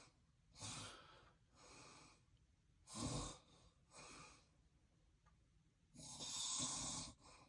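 Heavy, uneven breathing of a sleeping man with sleep apnea: about five noisy breaths with short quiet gaps between them, a longer hissing breath near the end.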